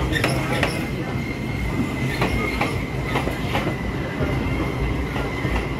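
Electric suburban local train running on the rails: a steady rumble with irregular sharp wheel clacks over rail joints and points, and a steady high-pitched wheel squeal.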